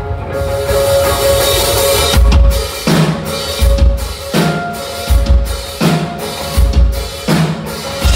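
Live rock band playing an instrumental intro on drum kit, electric guitars and bass: a held guitar note and a cymbal wash, then the full band coming in with kick drum and heavy chords landing together about every second and a half.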